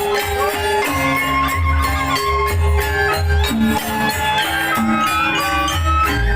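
Janger opening music from a traditional Banyuwangi (Osing) ensemble, played loud through a sound system. Heavy booming bass beats pulse under held melody notes, with sharp percussion strikes throughout.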